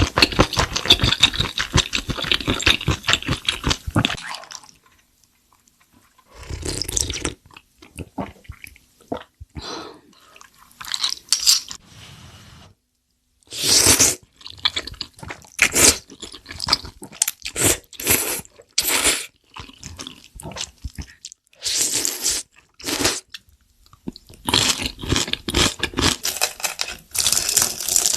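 Close-miked eating sounds: dense crunching and chewing for about four seconds, a brief pause, then irregular bursts of crunchy bites and chewing.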